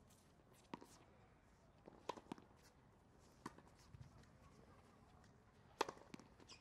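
Tennis ball being hit by a racket and bouncing on a hard court: a handful of sharp pops, a quick pair about two seconds in and the loudest near the end.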